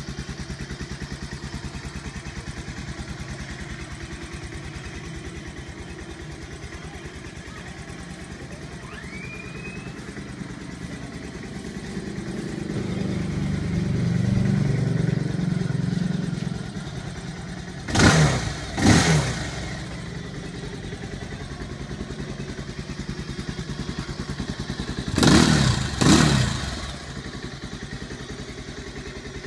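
Kawasaki (Bajaj) Rouser 220 single-cylinder motorcycle engine idling through an aftermarket slip-on silencer. The throttle is blipped twice in quick succession a little past the middle, and twice more near the end.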